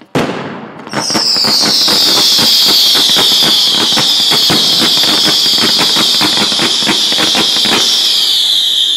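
An aerial firework shell bursts with a sharp bang, then a loud high hissing screech that slowly drops in pitch runs for about eight seconds, with rapid crackling pops from the burning stars through most of it.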